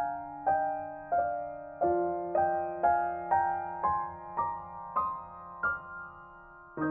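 Solo piano music: single notes struck about twice a second over held bass notes, the melody climbing step by step in the second half before a short pause.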